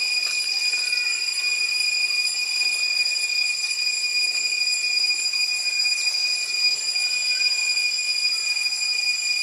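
Cicadas shrilling in the trees: a steady, unbroken high-pitched whine with evenly spaced overtones above it.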